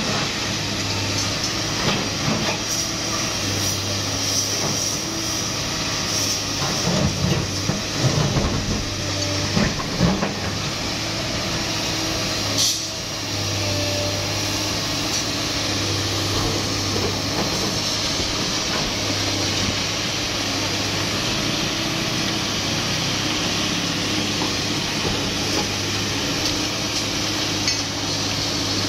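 Sany SY215C excavator's diesel engine running with a steady low drone and hiss as it works its boom and bucket. Several knocks of breaking concrete and brick come between about 7 and 10 seconds in, and a sharp crack comes near 13 seconds.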